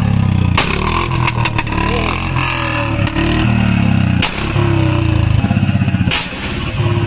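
Royal Enfield Bullet single-cylinder engine revving through a very long Punjabi silencer, with sharp backfire pops between the revs: a quick cluster about a second in, and single loud cracks past the middle and near the end. Between revs it drops to a slow, pulsing thump, and the whole sound is very loud.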